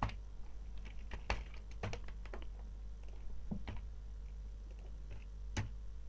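Computer keyboard keys tapped in an irregular run of clicks, bunched in the first couple of seconds and then thinning to a few single clicks.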